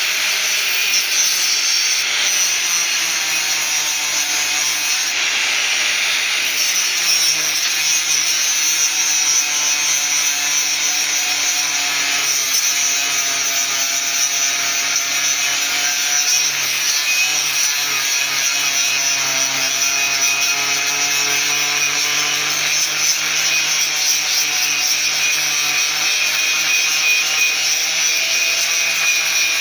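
Electric angle grinder grinding a weld bead down on a steel tube: a steady high whine over a grinding hiss, its pitch wavering as the disc is pressed into the metal.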